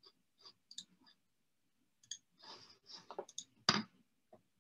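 Faint scattered clicks and a short soft rustle picked up over a video-call microphone, with the loudest click near the end.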